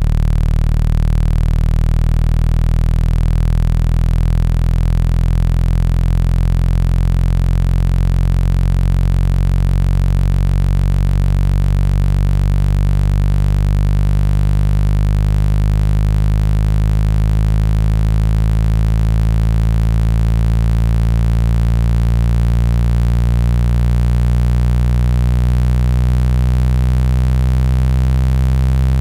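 Loud, steady low-pitched electronic buzzing tone of the kind played through a phone speaker to vibrate water out of it, with many overtones layered above it.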